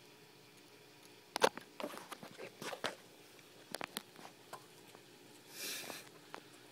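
Irregular small clicks and crunches of leopard geckos biting and chewing mealworms, loudest about a second and a half in, followed near the end by a short soft hiss.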